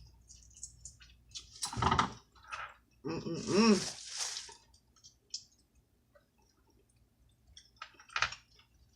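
Close-up wet eating sounds from seafood: lip smacks, chewing and squishing, with a short hummed 'mm' about three seconds in.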